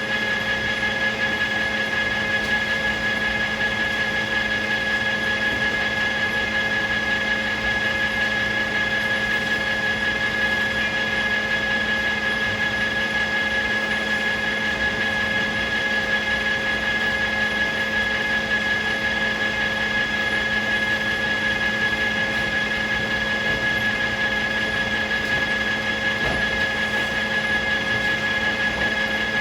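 Circular sawmill running steadily, a constant engine-and-machine hum with a high, even whine over it.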